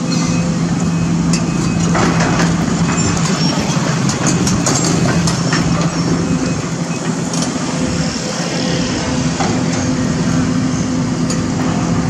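Sumitomo SH210 hydraulic excavator working, its diesel engine running steadily under load, with scattered knocks and clatters from the steel bucket against soil and stones.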